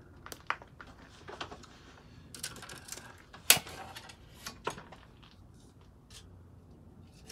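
Scattered clicks and knocks of hand tools, wood and a bench clamp being handled on a workbench, with one sharp knock about three and a half seconds in.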